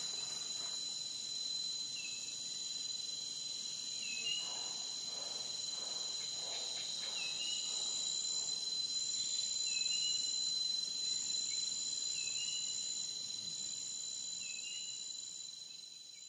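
Steady high-pitched drone of an insect chorus, with a short rising chirp repeating about every two to three seconds; it fades out at the end.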